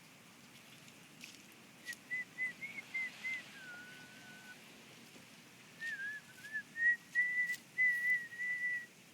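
A person whistling a tune: two phrases of short, wavering notes, the first dropping to a lower held note, the second ending on several notes at one pitch.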